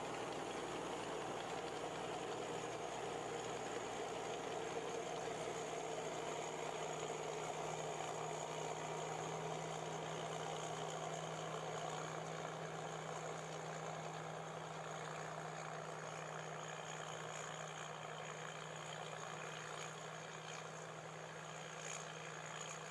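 Tracked combine harvester running steadily under a constant low hum, growing gradually quieter through the second half as it moves away.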